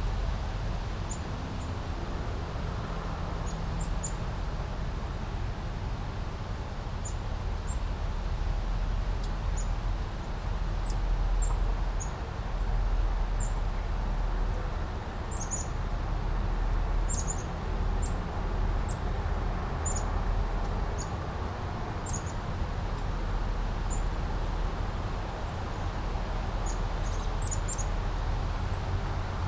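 A small brook babbling steadily over a low rumble, with short, high bird chirps scattered throughout.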